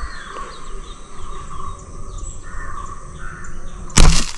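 Birds chirping and insects in the background. About four seconds in comes one loud, sharp snap as the rubber-band fishing arrow gun is fired.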